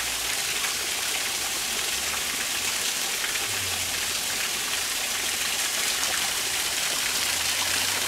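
Small waterfall pouring down a mossy rock face onto rocks: a steady rushing splash that grows slightly louder near the end.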